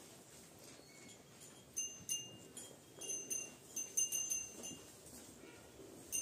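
Small cattle bells clinking and jingling in short, bright rings at irregular intervals as the calves feed, with a faint rustle underneath.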